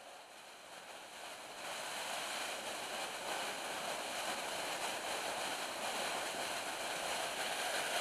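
Water of a small bush creek cascading over rocks, a steady rushing hiss that gets louder about one and a half seconds in.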